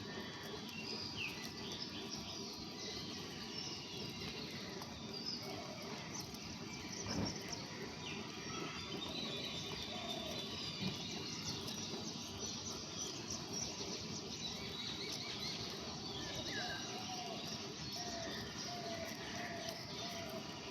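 Several wild birds chirping and calling over a steady outdoor background hiss, with a lower call of short repeated notes near the end. A single thump about seven seconds in.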